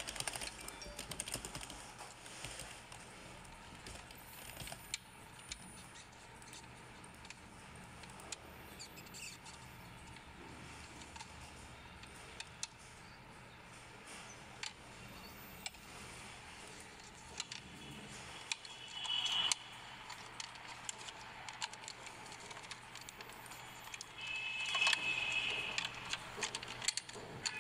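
Sparse small clicks and taps of a screwdriver and hands working on the plastic central air-vent housing of a BMW F10. Brief, louder scraping comes twice in the second half.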